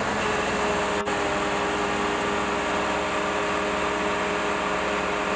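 Engine of a truck-mounted mobile crane running steadily, a level hum with several held tones over machine noise.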